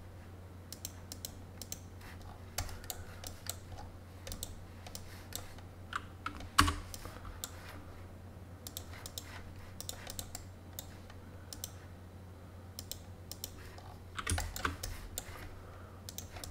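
Computer keyboard keys and mouse buttons clicking at irregular intervals as commands are entered, with a louder clack about six and a half seconds in and a quick run of clicks near the end. A low steady hum lies underneath.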